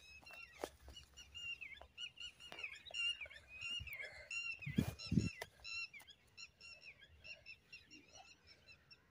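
A wild bird calling over and over in short, sharp notes, several a second. A couple of dull thumps come about five seconds in.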